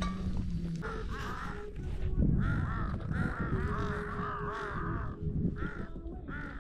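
A flock of crows cawing over and over, the calls starting about a second in and overlapping. The crows are gathering and calling to each other over scraps of chicken and bread thrown to them.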